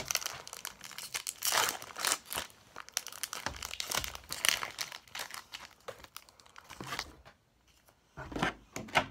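Foil wrapper of a Pokémon booster pack crinkling and tearing as it is opened by hand, in irregular rustles.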